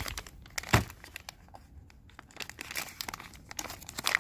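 Plastic zip-lock bag crinkling as it is handled with one hand, with a single sharp knock a little under a second in.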